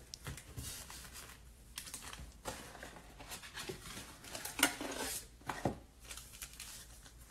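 Sealed trading-card packs in shiny wrappers rustling and crinkling as they are handled, taken out of a cardboard mega box and stacked, with light taps and clicks; the loudest crinkle comes about four and a half seconds in.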